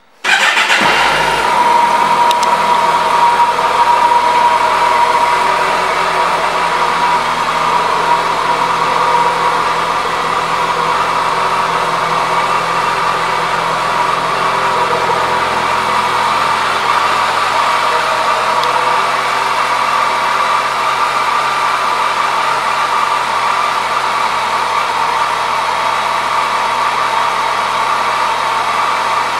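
2014 Kawasaki Concours 14 ABS's 1,352 cc inline-four engine idling steadily. The sound comes in abruptly right at the start and is slightly louder for the first several seconds before it settles.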